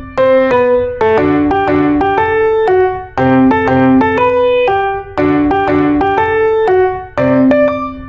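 Background music: a piano or electric-piano melody of plucky, evenly spaced notes in a repeating phrase.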